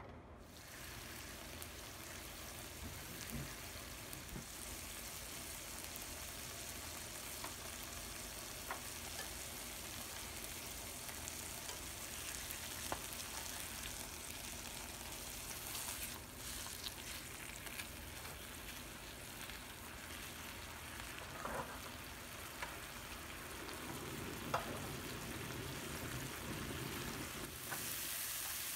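Slices of ham sizzling steadily in oil in a nonstick frying pan. A few light clicks and taps come through as the slices are turned with cooking chopsticks.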